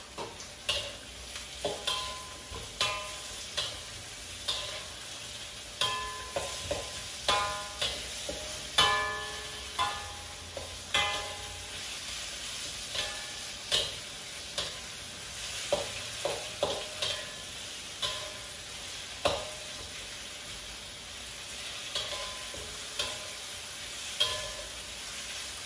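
A metal spatula scraping and clanking against a metal wok as onions and potato are stir-fried, over a steady sizzle. The strikes come irregularly, about one or two a second, each leaving a brief metallic ring from the wok.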